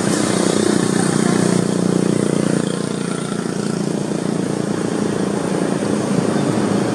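A steady low engine drone with a broad hiss over it, a little stronger in the first few seconds.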